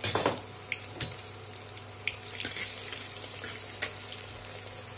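Sliced onions frying in hot mustard oil in a pressure cooker: a steady sizzle. A metal ladle clinks against the pot a few times as they are stirred.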